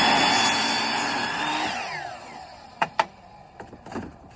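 Power saw cutting PVC pipe, running through the cut and then winding down to a stop about two seconds in, with a few sharp knocks afterwards.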